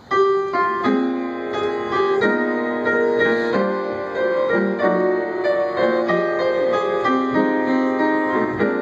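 Slow instrumental introduction on keyboard: held chords under a gently moving melody, standing in for a string-orchestra arrangement.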